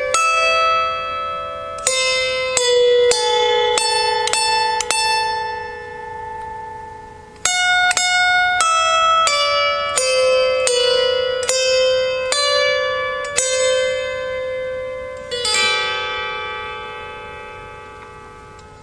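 Harp music: a slow melody of single plucked notes, each ringing and fading. A chord is struck about three quarters of the way through and left to ring out.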